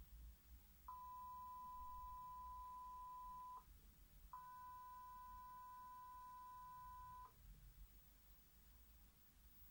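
Steady line-up test tone carried on satellite contribution feed channels, heard twice for about three seconds each and cut off abruptly each time the receiver changes channel; the second comes with a fainter, higher second tone over it.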